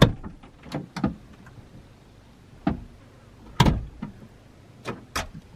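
About seven irregular knocks and clunks from gear and fittings being handled at a camper van. The heaviest is a low thump about three and a half seconds in.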